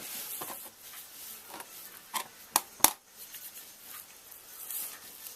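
Small tools and parts being handled on a workbench: light rustling and clinking, with three sharp clicks close together between about two and three seconds in.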